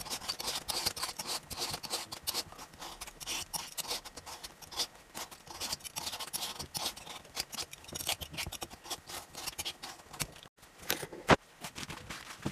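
Vegetable peeler scraping the skin off a butternut squash in quick, repeated strokes, with a single sharp click near the end.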